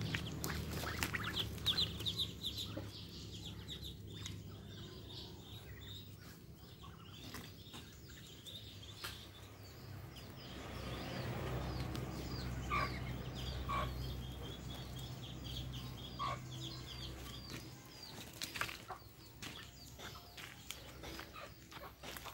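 Ducklings peeping: a dense flurry of quick, high peeps in the first few seconds, then fainter scattered peeps, with a few louder single notes in the middle.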